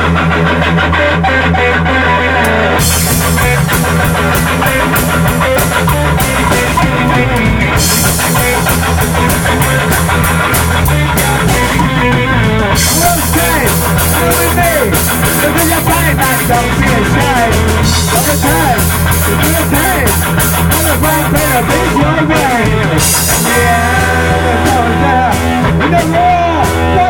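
Loud rock music: a distorted electric guitar playing with a full band, bass and drums under it, in sections where the top end drops out and comes back.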